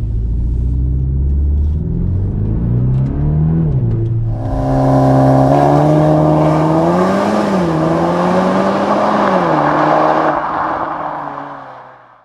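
VW T-Roc R's 2.0 TSI turbocharged engine and Akrapovic exhaust under way. It turns suddenly louder about four seconds in, then its note climbs and drops back twice before fading out near the end.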